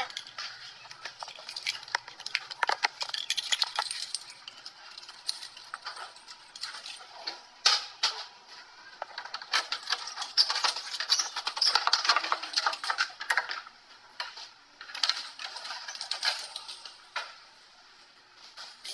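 Irregular rustling with scattered clicks and knocks from a handheld phone being moved about, hair and clothing brushing over its microphone.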